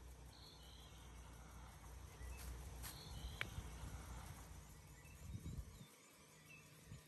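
Faint outdoor ambience: a low steady rumble with a few short, high chirps and ticks scattered through it, and a soft low bump about five and a half seconds in.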